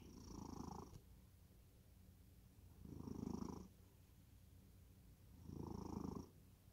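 A cat in deep sleep snoring faintly: three short snores, one about every three seconds, with quiet between them.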